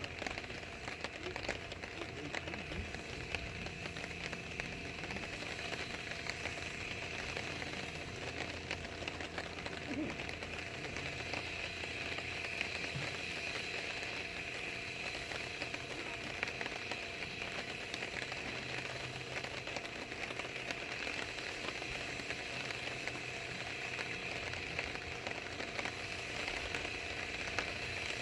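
Steady patter of light rain, an even crackling hiss with no break, over a faint low hum.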